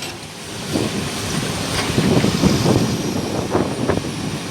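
Heavy diesel machinery running: a low, uneven engine rumble.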